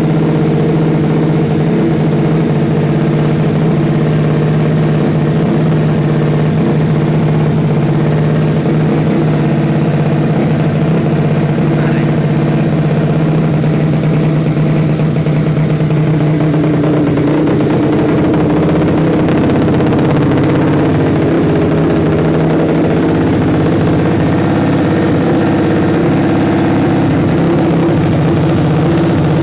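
Suzuki Nex scooter engine, tuned and bored out to 130cc, idling steadily, its tone shifting slightly about halfway through.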